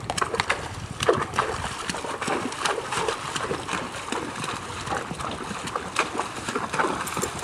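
Horse's hooves splashing and sloshing as it walks through a shallow creek: a run of irregular splashes, one after another.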